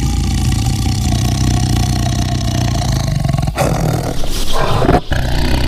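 Tiger roaring, a long low growling roar with brief breaks about three and a half and five seconds in.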